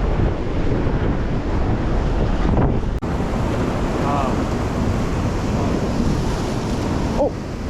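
Wind buffeting the microphone in a heavy low rumble, over surf washing against shoreline rocks. The sound drops out for an instant about three seconds in.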